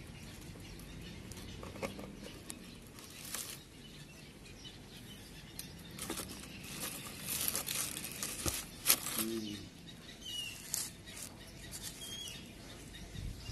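Scattered clicks and rustles as a cardboard milk carton with a plastic cap is handled, the loudest a sharp click about nine seconds in. A couple of faint bird chirps come near the end.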